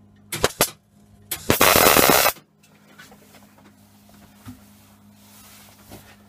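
MIG welding arc tacking a steel nose onto a gas-bottle pig: two short bursts, then one steady burst of about a second, followed by faint handling sounds.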